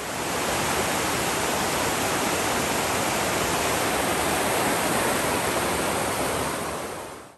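Steady rush of a fast river churning over rocks, fading in at the start and fading out at the end.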